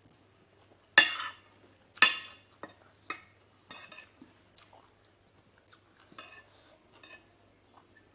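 Cutlery clinking and scraping on a plate while eating: two sharp clinks about a second apart, then lighter taps and scrapes.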